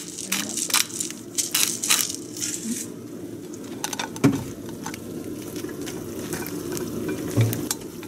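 Pepper mill grinding black pepper: a quick run of crunchy crackles that thins out to scattered ticks after about three seconds.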